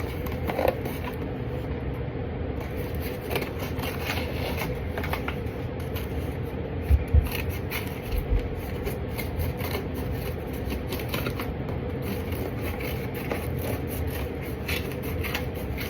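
Cardboard being handled and worked into a U shape: rustling and scraping, with two low thumps about seven seconds in.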